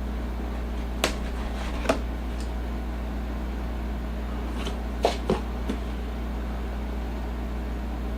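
A few light clicks and taps from the keyboard's box and packaging being handled: two about a second apart near the start, then three close together past the middle, over a steady low hum.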